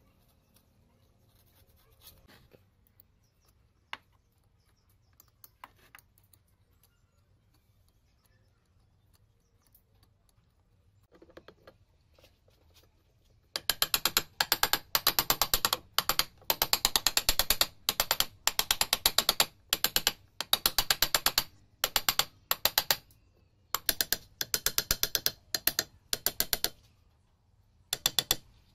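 Ratchet wrench clicking in quick repeated bursts with short pauses, driving bolts into the end of an electric water pump motor; the first half holds only a few faint knocks.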